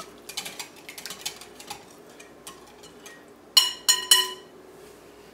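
Wire whisk stirring chocolate cake batter in a glass bowl, its wires ticking quickly against the glass for the first couple of seconds. Then three sharp clinks with a ringing tone, a little past three and a half seconds in, as the whisk knocks against the glass bowl.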